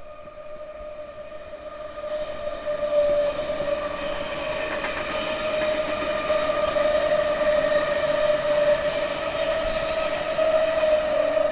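Sydney Trains electric train running past the platform: a steady, even-pitched whine over rail noise that grows louder over the first few seconds, then holds.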